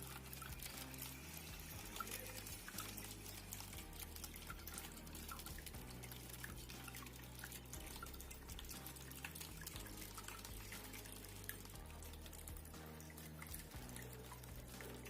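Water trickling and dripping steadily from a small cement tabletop waterfall fountain.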